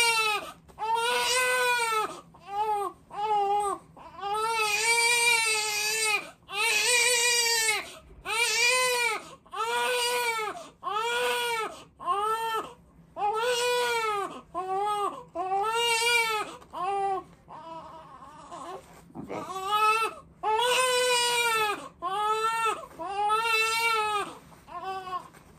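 Newborn baby crying hard: a steady run of short, arching wails about one a second, with quick breaths between them. The baby is hungry and waiting to be fed.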